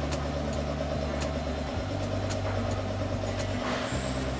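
Steady low hum of workshop machinery running, with light metallic clicks as a hex key works a bolt in a steel die plate. A short scrape near the end as a hand slides along the plate.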